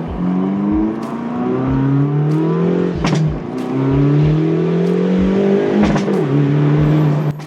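Car engine accelerating hard, its pitch climbing and dropping back several times as it pulls through the gears, over music with a steady beat.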